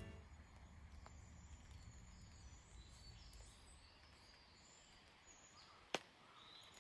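Near silence: faint outdoor ambience with a low hum and distant bird calls, broken by one sharp click about six seconds in.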